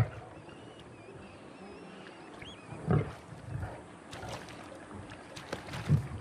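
Young male lion growling in about four short, loud bursts, with small water splashes in between.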